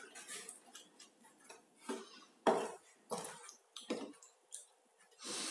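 Spatula scraping and knocking against a stainless steel frying pan: a handful of separate clinks and scrapes, the loudest about two and a half seconds in.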